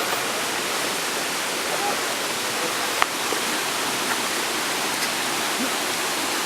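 Steady rushing of fast-flowing water from a river and waterfall, with a single sharp click about three seconds in.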